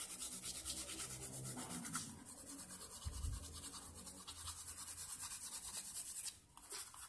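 Pencil shading on drawing paper: quick back-and-forth scratching strokes, several a second, with a brief pause near the end.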